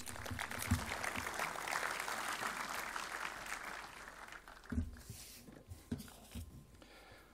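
Audience applauding in a hall, strongest at first and dying away after about four seconds. A few low thumps follow in the quieter remainder.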